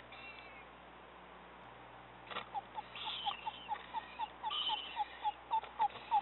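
Eastern screech-owl calling a run of short, evenly spaced notes, about four a second, that start a couple of seconds in and grow louder, with scattered higher chirps among them.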